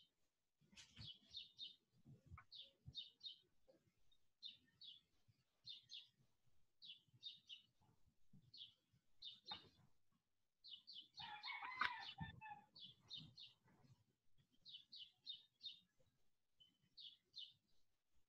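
Faint bird chirps in quick runs of two to four, repeating every second or so, with a longer, louder pitched call about eleven seconds in.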